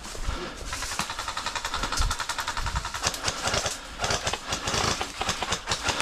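Airsoft electric gun firing on full auto: a fast mechanical rattle of shots in long bursts, with a short pause about halfway.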